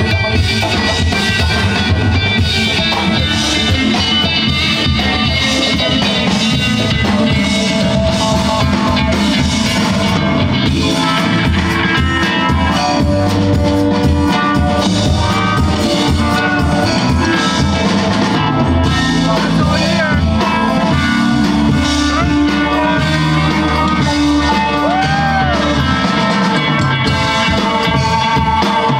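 Live band playing an instrumental dub-funk jam: electric guitar, bass guitar, drum kit and keyboards over a steady beat.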